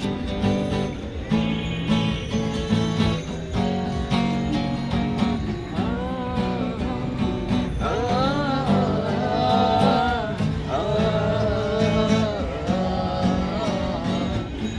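Acoustic guitar strummed in a steady rhythm, with a man's voice singing a melody over it from about six seconds in.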